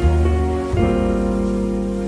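Background music: soft, slow instrumental with sustained notes over a steady bass, changing chord about a second in.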